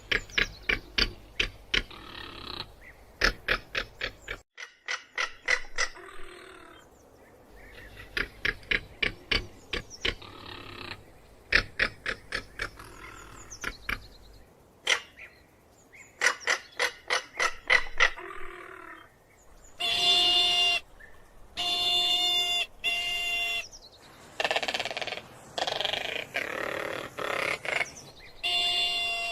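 Crested caracara calling: several bouts of rapid, dry rattling notes, followed from about two-thirds of the way in by a string of longer, harsh, level-pitched calls.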